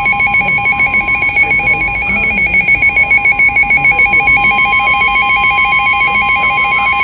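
Emergency alert attention tone: a steady tone with a rapidly trilling, ring-like alarm tone sounding over it, signalling that a warning message is about to be read.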